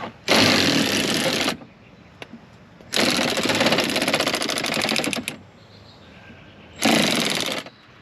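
A handheld power tool run in three bursts, each with a fast rattling buzz: the longest, about two seconds, comes near the middle, with shorter ones at the start and near the end.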